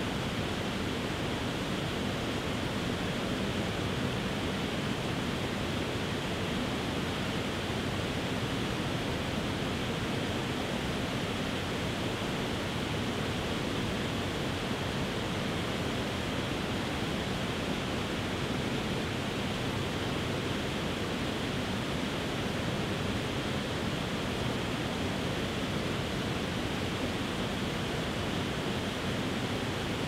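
Tiered waterfall spilling over rock ledges: a steady, even rush of falling water.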